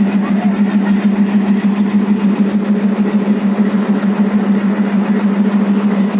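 Locomotive of a departing express train giving a loud, steady drone at one low pitch, with a slight rapid pulsing in loudness.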